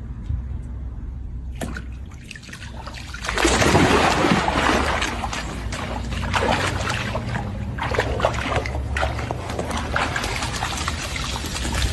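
Swimming-pool water splashing as a dog goes into the pool: a sudden loud splash about three seconds in, then irregular sloshing and splashing as the dog thrashes in the water.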